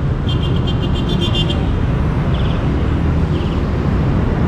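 Steady rumble of street traffic heard from a bicycle riding among vehicles. A rapid, even ticking lasts about a second near the start, and two short bursts of it come later.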